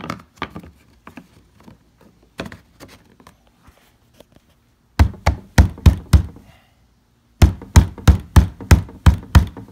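Plastic step-wedge support bracket on a Sea-Doo Spark being knocked into place by hand against the hull. A few light clicks and taps come first, then two quick runs of sharp knocks, about five a second: about six knocks roughly five seconds in, and about nine more a second later.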